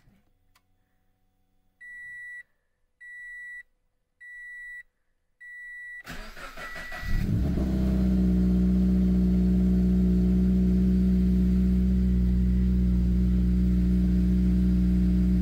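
Four short beeps, then a Scion FR-S/Subaru BRZ/Toyota GT86's 2.0-litre flat-four engine cranking on the starter and catching about six seconds in. It settles into a steady fast idle on a cold start.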